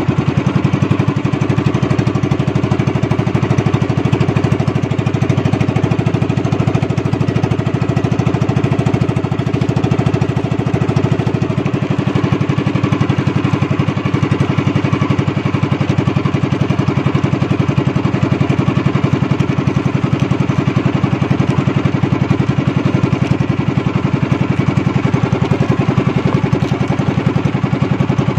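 Small engine of a motorized outrigger fishing boat running steadily at an even speed, a loud unbroken rapid chugging hum.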